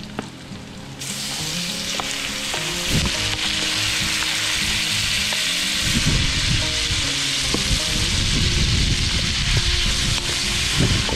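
Cubes of raw pork hitting hot pork fat in a metal wok: a loud sizzle jumps up about a second in and then holds steady. A wooden spatula stirs the meat near the end.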